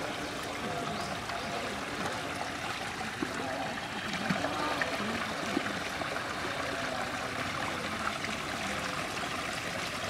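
Muddy rainwater running steadily down a shallow ditch and pouring through a plastic mesh basket, a continuous trickling flow.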